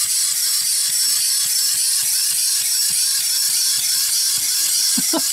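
Wind-up clockwork mechanism of a small plastic 2003 Burger King 'Hat Trick' Thing 1 and Thing 2 toy, running down after being wound. It makes a steady fast whir with rapid ratcheting ticks as the two figures hop along in their hats.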